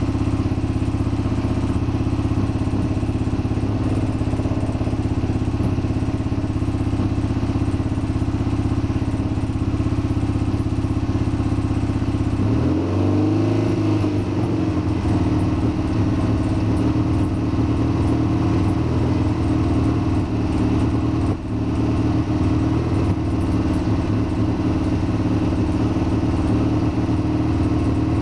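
Triumph Bonneville T120's 650 cc parallel-twin engine running steadily as it warms up from a cold start on choke, freshly rebuilt with ground valves. About twelve seconds in, the engine note rises and then holds steady again.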